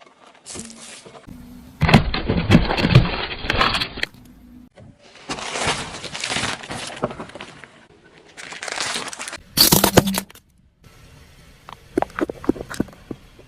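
A car's tyre rolls over objects and crushes them: cracking, breaking and crunching in several separate bursts. The loudest is a heavy crunch about two seconds in, and scattered sharp crackles come near the end.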